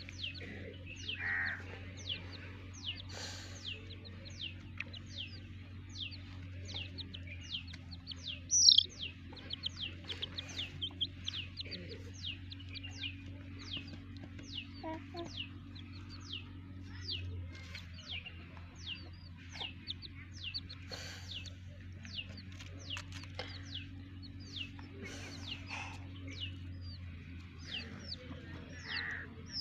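Chicks peeping without pause: a quick, even run of short, high, falling cheeps, several a second, with one louder peep about nine seconds in.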